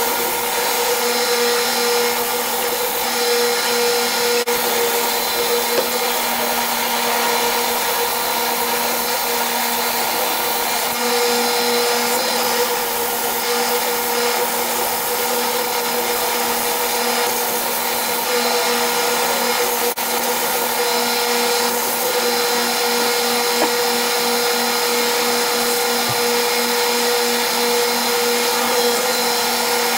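Edge belt sander running steadily with a constant motor hum, while a wooden barn-beam corbel is pressed against the moving abrasive belt and sanded.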